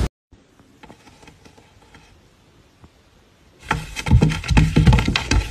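Faint room sound for about three and a half seconds, then a run of loud, irregular knocks and thumps against wood, roughly three a second. This is a wooden drawer knocking as a cat scrabbles and swipes inside it.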